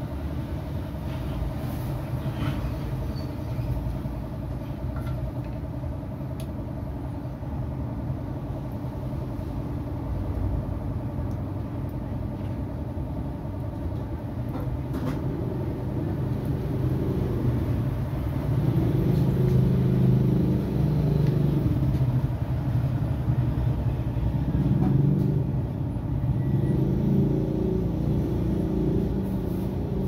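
Steady rumble of motor-vehicle engines running nearby, growing louder about two-thirds of the way through.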